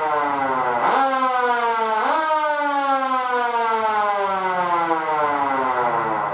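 Small Federal Signal IC-S2S4 siren growling: its pitch is falling as the rotor coasts, it is briefly powered twice about a second apart so the pitch jumps up each time, and then it winds down slowly.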